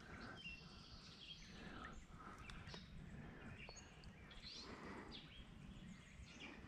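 Near silence: faint bird chirps now and then over a low, steady background rumble.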